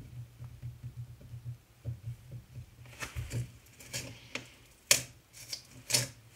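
Rustling and handling noise right at a phone's microphone: soft low bumps, then from about halfway a handful of sharp rustles and clicks, the loudest about five seconds in.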